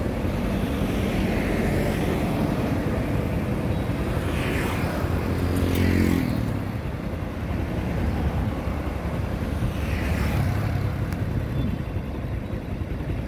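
Road traffic of motorbikes and cars passing close by, a steady rumble with vehicles swelling and fading as they go past. One engine passes loudest a little before six seconds in.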